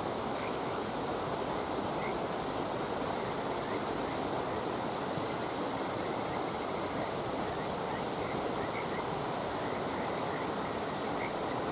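Steady rushing noise like flowing water, unchanging throughout, with faint short high chirps about once a second.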